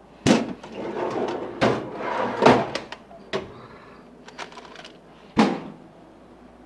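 Sharp knocks and rattles of metal tools and parts being picked up and set down on a workbench, about five distinct hits.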